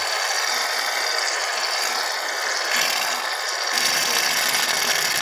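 Aerosol can of shaving cream spraying foam out: a steady hiss.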